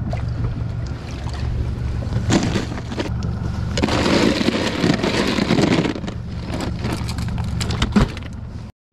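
Ice cubes clattering and shifting in a cooler as a large fish is laid on them, over a steady low rumble. A single sharp knock near the end as the cooler lid shuts.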